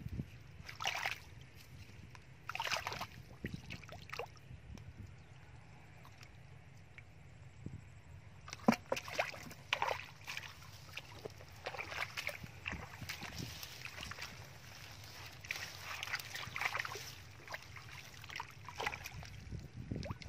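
Hands and bare feet sloshing and splashing in shallow muddy water, in irregular short bursts, over a steady low rumble.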